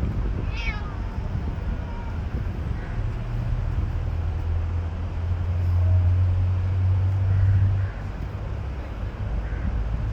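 A cat meows once about half a second in, a call that falls in pitch, with a few fainter calls later. A steady low rumble from about three to eight seconds is the loudest sound.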